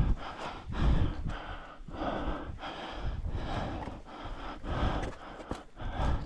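A hiker breathing hard in heavy gasps, with footsteps scuffing and thudding on rocky ground, while climbing a steep trail. The breaths and steps come in an uneven rhythm, roughly one every half second to second.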